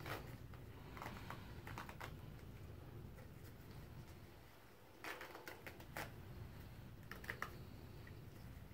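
Faint scattered crackles and rustles of gloved hands wrapping and pressing a self-adherent Coban bandage around a toe, in a few short bursts of small clicks.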